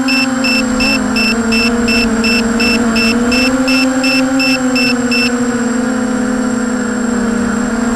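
Small electric motors and propellers of an EMAX 250-size FPV racing quadcopter, picked up by its onboard camera: a steady whine whose pitch wavers slightly with throttle. Over it, a high electronic beeper sounds about three times a second, some fifteen beeps, stopping about five seconds in.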